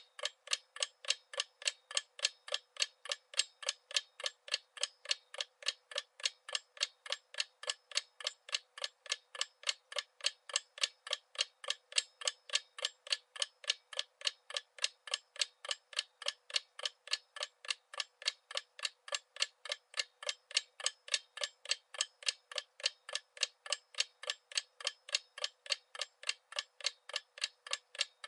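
Clock-like ticking sound effect: short, sharp ticks at an even pace of about three to four a second, with no low end.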